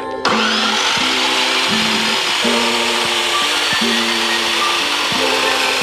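Metal-cutting chop saw starting suddenly and then running steadily as its blade cuts through steel stock, over background music with a steady beat.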